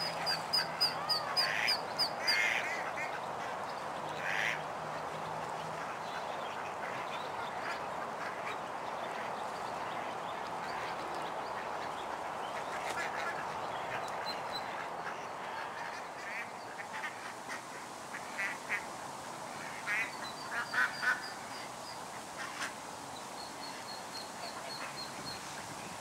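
Ducks quacking in scattered short calls over a steady hiss, with a small bird's rapid high trill in the first two seconds.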